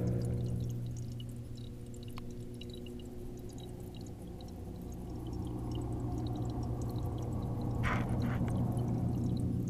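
Underwater sound inside a fish tank, muffled by the waterproof camera housing: a steady low electrical hum from the tank's running equipment under a faint watery hiss with scattered small ticks, and a brief rustle about eight seconds in.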